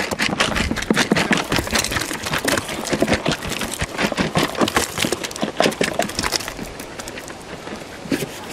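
Kitchen scraps being tipped and shaken out of a plastic bucket, a rapid clatter of small knocks and thuds as the pieces fall. It thins out after about six seconds.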